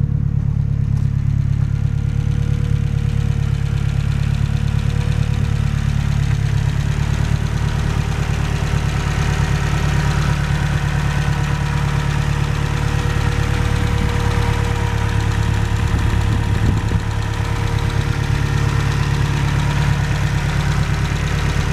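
Car engine running steadily at a fairly constant speed, with small shifts in its note about six seconds in and again near seventeen seconds. The owner suspects it is making an abnormal noise.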